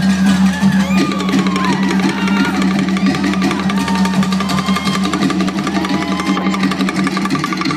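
Music with drums playing over a loudspeaker. Near the end a fast, even rattling beat comes in.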